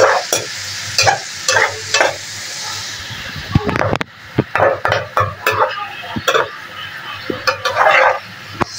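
Chicken pieces and tomatoes frying in a metal karahi, with a steady sizzle, while a slotted metal spoon stirs them in repeated scrapes and clinks against the pan. The sizzle is louder for the first few seconds.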